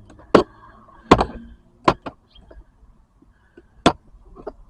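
Long-nose pliers working a retaining pin out from under a car's gear shifter trim: several sharp clicks and taps, spaced irregularly.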